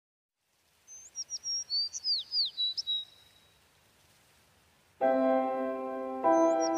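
A quick run of short, falling bird chirps lasting about two seconds. About five seconds in, keyboard music starts with loud held chords. The chord changes a second later and the chirps come back.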